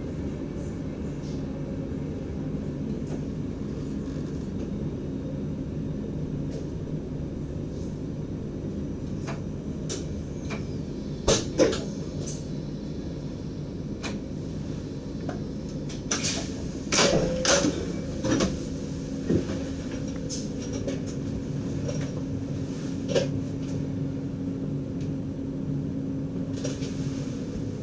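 DDZ double-deck electric train running along the track, heard from the driver's cab: a steady low rumble, broken by sharp clicks and knocks, two close together about a third of the way in, a cluster just past the middle and one more later.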